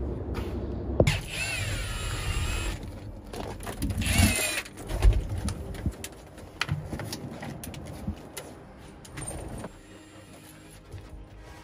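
Metal squealing and clanking as a truck cab is worked free: a wavering high squeal about a second in, a short noisy burst, then a heavy thump and scattered knocks.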